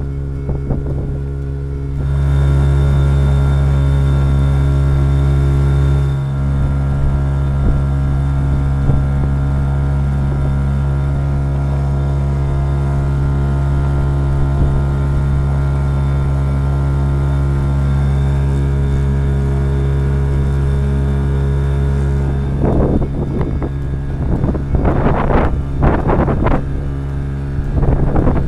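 Yamaha 3 hp outboard motor running steadily under way, pushing a loaded canoe; it gets louder about two seconds in. Near the end, gusts of wind noise on the microphone and splashing water come and go over the engine.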